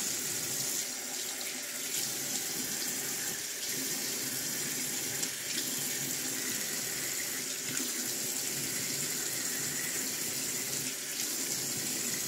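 Water running steadily from a tap into a sink, with a few faint knocks.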